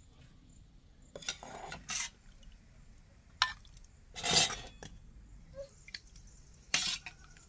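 Stainless steel ladle clinking and knocking against a steel pot and a small steel bowl while curry is scooped and served: about five separate, irregular clinks.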